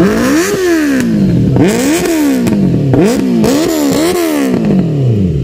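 Benelli motorcycle engine blipped repeatedly through its exhaust while standing: about seven quick throttle stabs, each pitch jumping up sharply and falling back toward idle, closer together in the middle.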